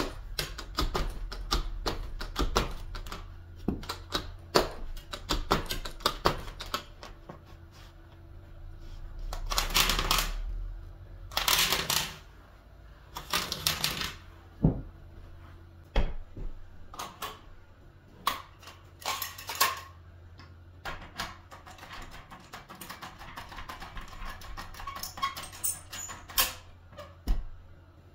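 New carpet being set onto the tack strip along a wall with a knee kicker and a hand tucking tool: a run of quick clicks and taps, with several longer scraping rustles of carpet in the middle.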